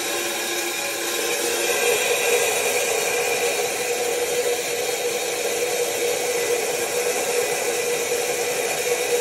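Stainless steel corn mill grinder running steadily, its motor whirring with a constant grinding noise as dried corn kernels are milled into coarse grits.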